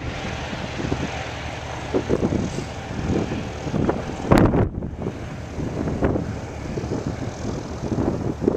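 Eurocopter EC135 twin-turbine medical helicopter flying away after takeoff, its rotor and engine sound carried on gusts of wind buffeting the microphone. A sharp thump, the loudest sound, comes about four seconds in.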